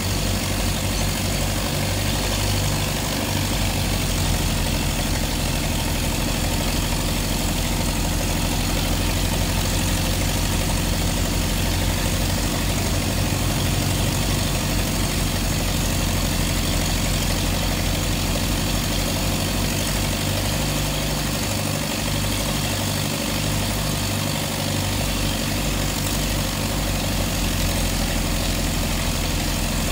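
A heavy engine running steadily with a constant low drone and an even hiss over it.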